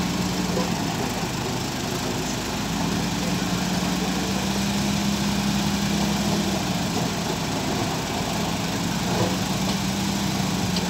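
Dump truck's diesel engine running steadily while the hydraulic hoist tips the loaded bed, its note rising a little about three seconds in and staying up.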